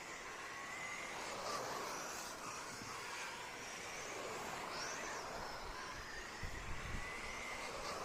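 Street stock race cars' engines running around the track, their pitch slowly rising and falling as the pack laps, with a few low thuds near the end.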